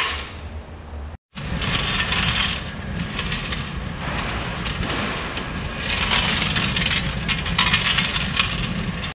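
Old steel bolts clinking and rattling against each other and the steel drum as they sit in a blown coal fire, over the steady low hum of the electric blower. The sound drops out briefly about a second in.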